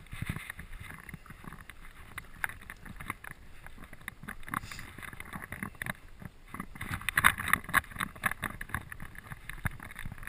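Irregular scuffing and knocking from footsteps on shoreline rocks and clothing rubbing against a chest-mounted camera, thickest about seven seconds in.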